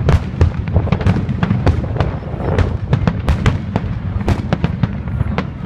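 Fireworks display: a rapid, uneven barrage of sharp bangs, several a second, over a continuous low rumble.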